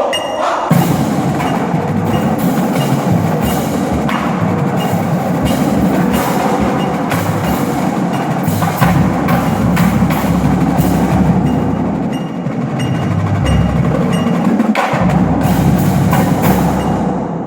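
Marching drumline playing a loud, dense percussion passage of rapid strokes that starts under a second in and keeps going without a break.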